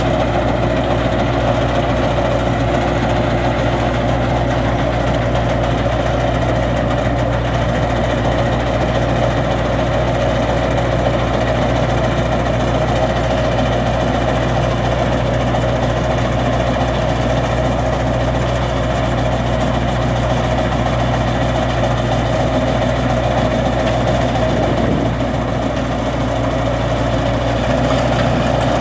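Skid steer loader engine running steadily at constant speed.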